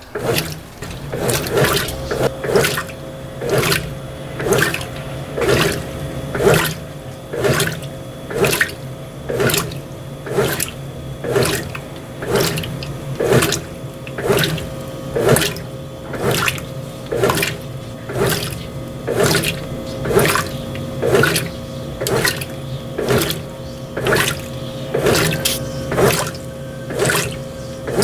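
Brastemp BWT12 top-loading washing machine agitating a load of clothes in water during the wash stage, its agitator sloshing the load in a steady rhythm of about one stroke a second over the hum of the motor.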